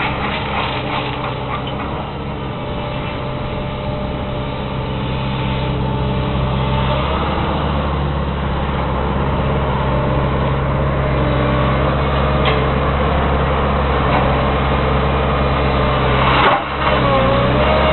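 Diesel engine of a road-rail excavator running steadily. Its pitch and level rise a little about seven seconds in, and it briefly dips and recovers near the end.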